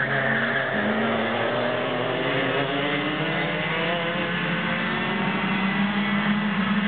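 Several racing go-kart engines running hard together as a pack goes by, their overlapping pitches sliding up and down as the drivers come off and back onto the throttle.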